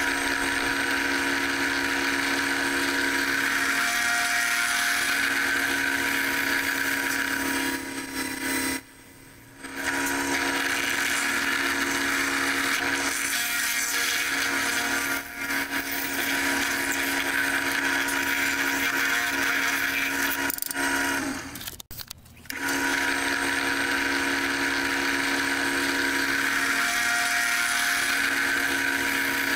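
A drill press runs steadily, its bit boring the hole for the draw knife's tang into the end of a cedar wood handle held by hand. The sound drops out briefly twice.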